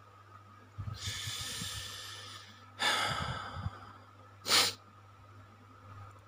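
A person breathing close to the microphone: a long breath out about a second in, a shorter breath around three seconds, then a short, sharp breath about four and a half seconds in.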